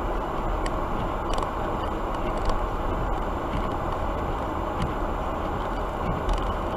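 Steady low rumble of a vehicle engine running, with a few faint ticks.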